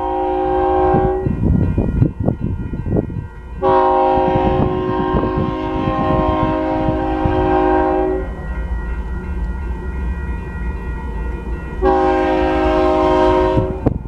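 GE AC44CW locomotive's air horn sounding a multi-note chord, blown for the grade crossing: a blast ending about a second in, a long blast from about 3.5 to 8 seconds, and a shorter blast near the end. Beneath it runs the steady low rumble of the approaching train.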